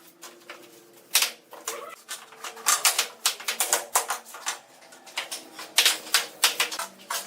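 Irregular series of sharp taps and clacks of hard objects striking, many short knocks coming in quick clusters.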